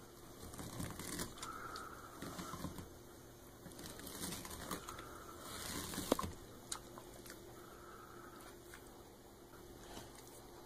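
Dog ripping and shredding a mesh bath sponge with its teeth: scratchy tearing and crinkling in several bursts, with a few sharp snaps about six seconds in.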